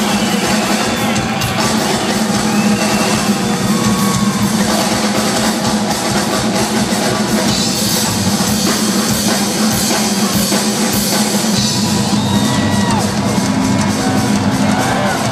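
Live rock drum solo on a large drum kit: rapid, continuous drum and cymbal hits, heard loud through the arena PA from within the audience.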